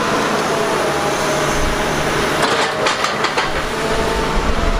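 Doosan DX380 tracked excavator running steadily, with a rock grab working on the arm. A cluster of heavy knocks comes about two and a half to three and a half seconds in as a large armour rock is dropped onto the rocks.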